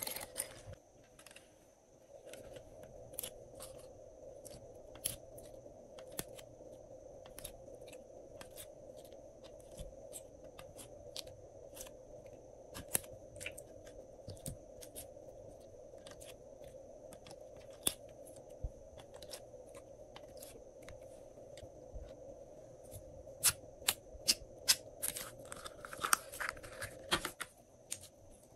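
Slime and soft clay being pressed onto a bowl of glossy slime and worked by hand: scattered small sticky clicks and crackles over a faint steady hum. The crackling grows busier and louder near the end as a lump of green slime is handled.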